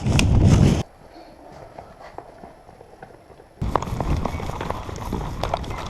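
Players running in combat kit: hurried footsteps and rattling gear, with a loud low rumble of wind and handling on the body-worn camera's microphone at the start. The sound drops away briefly after about a second, then the running footsteps and clatter pick up again about three and a half seconds in.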